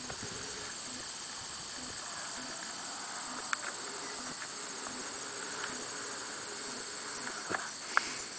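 Steady, high-pitched chorus of insects. A few faint sharp clicks are heard, the sharpest near the end.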